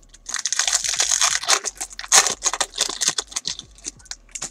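Foil wrapper of a trading-card pack crinkling and tearing as it is opened, a dense crackle for about three seconds, followed by a few light clicks as the cards are handled.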